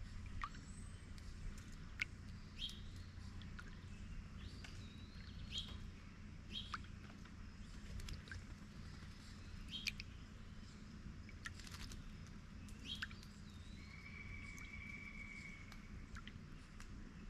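Songbirds giving short, scattered chirps and calls, with one longer even note near the end, over sharp clicks and light dripping of water at a bird bath with a small solar fountain, and a low steady rumble.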